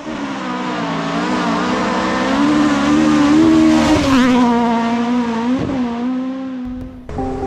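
A car engine held at high revs, its pitch wavering slightly up and down, with a short screech about four seconds in. The sound dies away just before the end.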